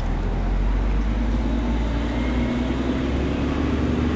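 Idling vehicle engine: a steady low rumble, joined about a second and a half in by a steady hum.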